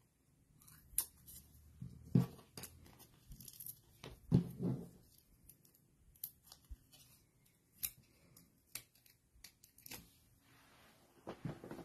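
Faint scattered paper-craft handling: adhesive backing being peeled off small foam dimensionals and a paper tag being picked up and pressed down, giving short peeling rips, ticks and paper rustles. It is a little louder about two seconds in and again around four to five seconds in.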